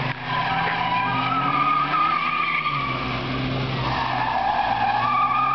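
A classic convertible's tyres squeal as it is driven hard through tight turns. The squeal fades out and comes back, over an engine note that rises and falls as the driver works the throttle.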